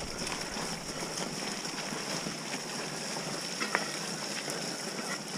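Bike riding a wet, muddy forest trail: steady rushing noise of wind on the camera microphone and tyres rolling through mud and leaves, with a faint steady high whine and a few light rattles about three and a half seconds in.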